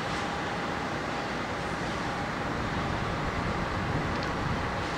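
Two DD51 diesel-hydraulic locomotives running coupled together, hauling a train of tank wagons slowly toward the listener, with a steady, even engine sound.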